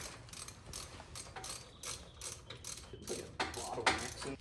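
Quick ratcheting clicks in short runs, louder about three and a half seconds in, as a fastener at the front-mount intercooler piping is worked by hand.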